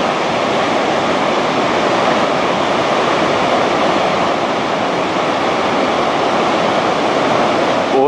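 Langfoss waterfall cascading down a steep rock face: a loud, steady rush of falling water.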